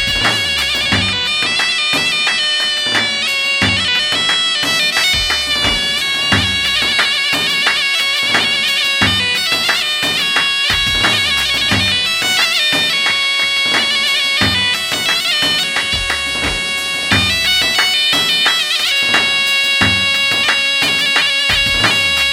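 Loud music with a reedy, nasal wind-instrument melody, held notes with ornamented slides, over a steady drum beat.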